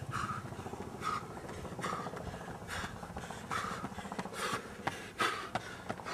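A person breathing hard and rhythmically, with a hissing breath roughly every second, like a runner panting.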